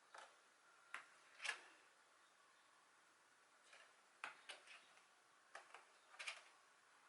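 Faint, brief rustles and soft taps of glossy photobook pages being turned and handled, a few scattered strokes with near silence between them.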